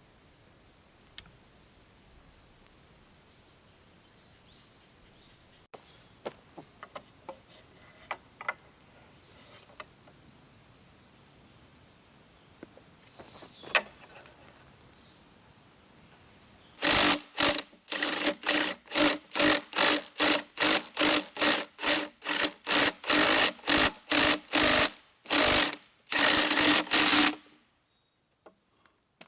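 Hand saw cutting bamboo: a run of loud, even sawing strokes, about two a second, each with a hollow ringing tone, starting a little past halfway and stopping shortly before the end. Before it, a steady high insect drone with a few light taps and clicks.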